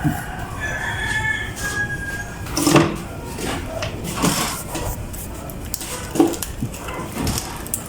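A rooster crowing, its call trailing off about two seconds in, then four or five sharp knocks and clinks spaced about a second or more apart.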